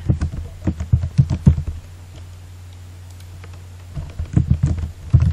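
Typing on a computer keyboard in two quick bursts of keystrokes, each about a second and a half long, with a pause of about two seconds between them.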